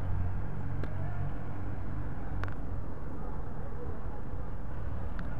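Steady low rumble of distant city traffic, with three faint clicks.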